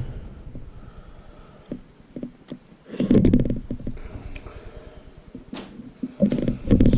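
Greased polyurethane bushings and tensioner parts being handled and worked into place by hand: scattered clicks with two bursts of low, rough rubbing, about three seconds in and near the end.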